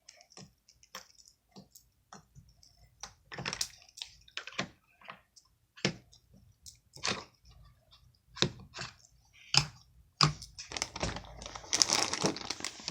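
Slime being poked and stretched by hand: scattered small sticky clicks and squelches, growing busier and denser near the end.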